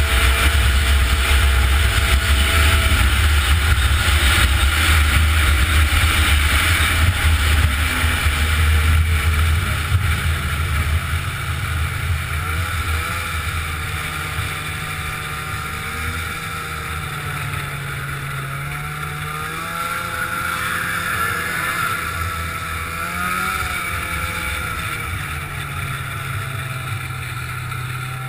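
Arctic Cat snowmobile engine running at speed, with wind buffeting the microphone. About ten seconds in the wind rumble eases, and the engine note rises and falls as the throttle changes.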